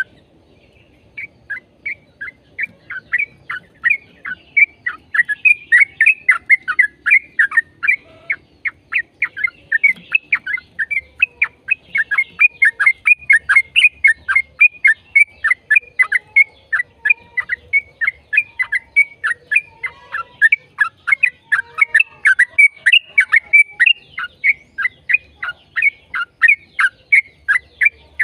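Yellow-vented bulbul (trucukan) singing a long, unbroken run of short, sharp downward-slurred notes, about four a second.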